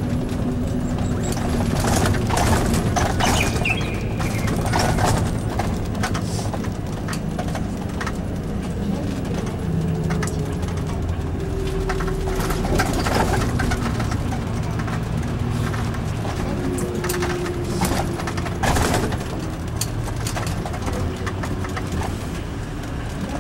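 Nissan Diesel Space Runner UA city bus heard from inside while driving: the diesel engine runs with its pitch stepping up and down as the bus changes speed, over a steady clatter of body and door rattles.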